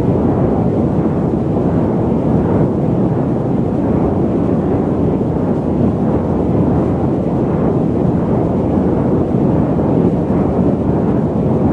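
Steady, deep cabin noise of a jet airliner in cruise: an even rumble and rush of engine and airflow, with no changes.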